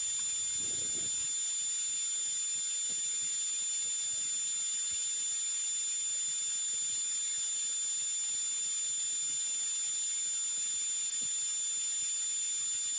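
A steady high-pitched whine, two unchanging tones over a hiss, with very faint low scuffs underneath.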